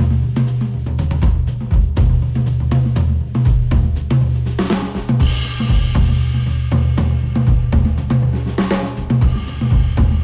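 Instrumental music with a busy drum kit (snare, kick, hi-hat) over heavy bass, with brighter cymbal crashes about halfway through and again near the end, played back through a headphone and picked up by a measurement microphone.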